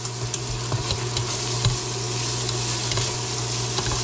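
Ground pork, pork cubes and sliced Vienna sausage sizzling as they fry in a stainless steel pot, stirred with a spatula that scrapes and clicks against the pot now and then, over a steady low hum.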